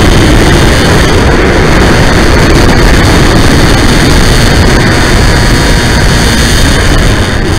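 Loud steady rush of wind and propeller noise from a Bixler 3 electric model plane's onboard camera microphone during low flight, with a faint steady high motor whine.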